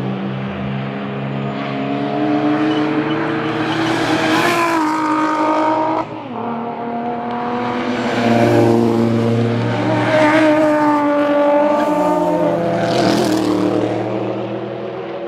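Race cars passing one after another through a bend, their engines revving and rising in pitch as they accelerate away, several engine notes overlapping. The sound breaks off abruptly about six seconds in, then picks up again with more cars.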